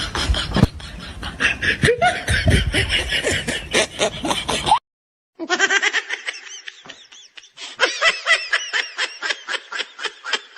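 Laughter sound effect: a person laughing in quick, rapidly repeated bursts, cut off about five seconds in by a brief silence, then a second stretch of rapid laughing.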